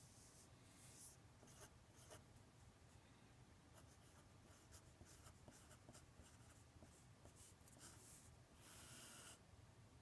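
Faint scratching of a pen writing numbers on paper in short strokes, with one longer stroke near the end as a line is drawn across the page.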